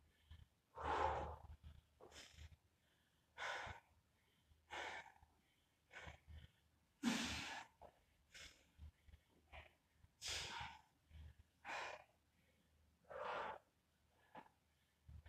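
A man breathing hard and winded from exertion, with about a dozen heavy, noisy breaths roughly one every second or so and short quiet gaps between them.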